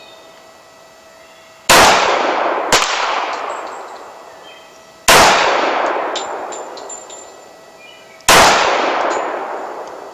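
Dan Wesson Valor 1911 pistol firing three single shots about three seconds apart, slow aimed fire, each shot leaving a long echoing decay. A fainter sharp report comes about a second after the first shot.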